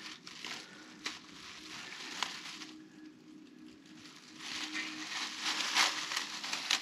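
Faint rustling and scraping from hand work under a car, with two sharp clicks in the first few seconds and a louder stretch of scraping near the end.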